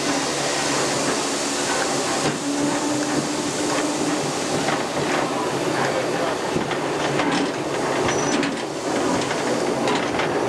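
Cab noise of the Ok22 steam locomotive under way: a steady hiss and rumble of the running engine, with scattered knocks and clatter from about halfway through.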